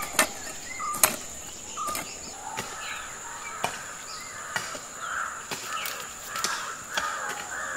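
A crow cawing over and over, starting a few seconds in, over a steady high insect drone, with a few sharp knocks.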